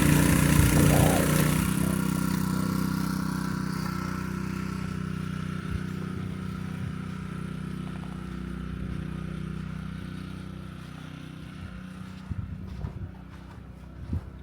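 A motor vehicle engine running steadily, fading away over about ten seconds as it moves off. Near the end come a few footsteps in snow.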